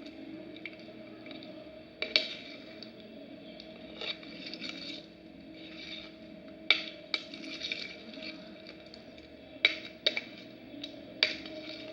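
Clear homemade slime being stirred and worked: wet squishing, with sharp clicks and pops now and then.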